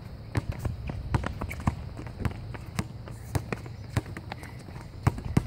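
A basketball being dribbled on an outdoor hard court: sharp, irregular bounces about two a second, with running footsteps.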